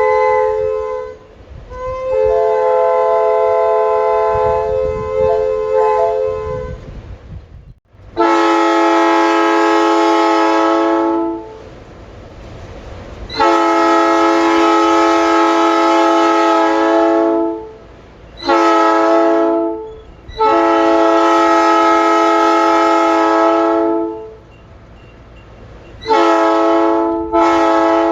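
Three-chime locomotive air horns blown on compressed air. A higher-pitched chord is held for about seven seconds and cuts off. Then a lower, louder horn sounds in the long-long-short-long grade-crossing pattern, followed by short toots near the end, with a hiss of air between blasts.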